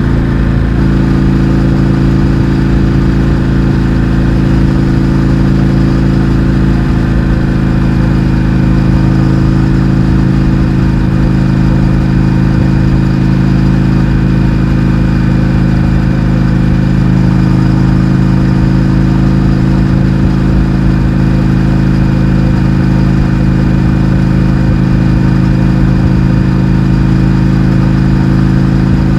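Indian FTR 1200's V-twin engine, breathing through an Akrapovič exhaust with the baffles removed, running loud at a steady, unchanging engine speed.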